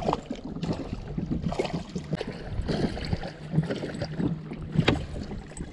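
Spinning reel being cranked to reel in a hooked striped bass, with irregular clicks and knocks of handling and water noise around a small boat; the sharpest knock comes near the end.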